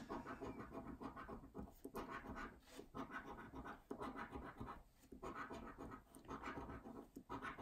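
A coin scratching the coating off a scratchcard in short runs of quick strokes, with brief pauses between runs.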